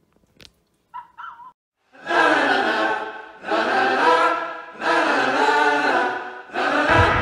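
Intro jingle of voices singing a cappella: four long held chords, the last with a low boom under it near the end, after a short sung note about a second in.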